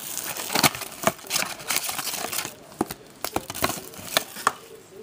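Wrapping torn off a hobby box of trading cards and the box opened: crinkling and crackling with many sharp snaps, busiest in the first couple of seconds and sparser after.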